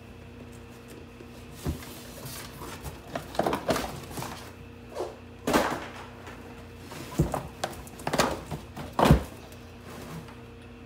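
Unboxing handling noise as an Arrma Kraton RC truck is pulled out of its cardboard shipping box: cardboard and packaging rustling and scraping, broken by a series of dull thuds and knocks.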